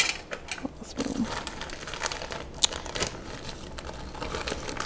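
Thin plastic food bag crinkling as it is handled and a spoon scoops dry ingredients out of it, an irregular crackle with one sharper click about two and a half seconds in.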